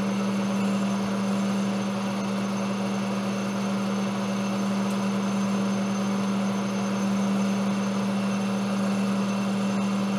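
Monarch Model K engine lathe running steadily while turning a 1018 mild steel bushing blank, a constant machine hum with cutting noise.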